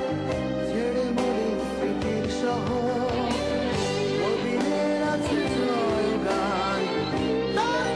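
A rock band's song playing, with guitars, bass and drums under a bending melodic lead line.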